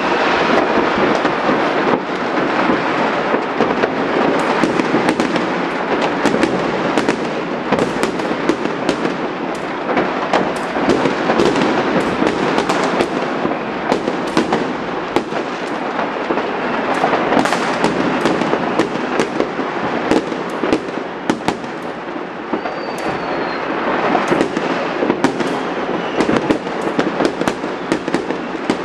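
Many fireworks and firecrackers going off at once: a dense, unbroken crackle of bangs and pops, with a faint whistle from a rocket about two-thirds of the way through.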